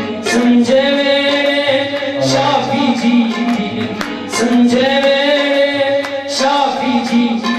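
A male voice sings a Punjabi Christian devotional song (Masih geet) in long held notes, accompanied by harmonium and tabla strokes.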